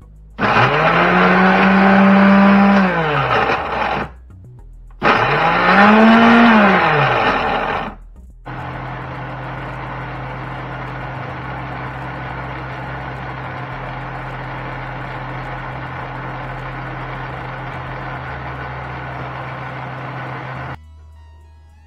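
Countertop blender blending diced sweet potato and yellow yam into a batter. The motor is run twice in short bursts of about three seconds, each spinning up and winding down, then runs steadily for about twelve seconds before cutting off.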